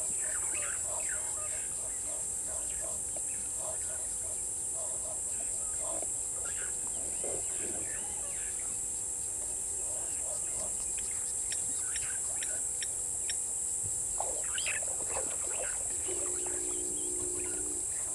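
Bushveld ambience: a steady high-pitched insect drone with many short bird chirps and calls over it. A brief low hum sounds near the end.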